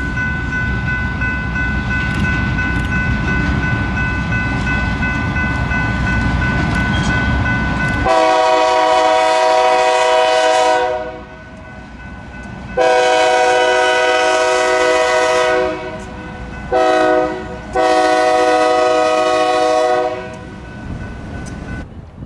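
EMD GP9 diesel locomotive approaching with its engine rumbling and a steady high ringing underneath. About eight seconds in, its multi-chime air horn sounds two long blasts, a short one and a long one: the standard grade-crossing signal.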